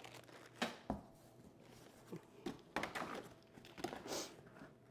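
Cardboard box and plastic packaging handled during unboxing: scattered rustling and crinkling with a few light knocks.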